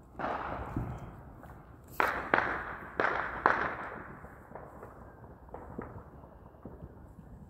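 Series of loud outdoor bangs, each with a long echoing tail. A rumbling boom comes just after the start, then four sharp cracks in quick succession from two to three and a half seconds in, and a couple of fainter pops later.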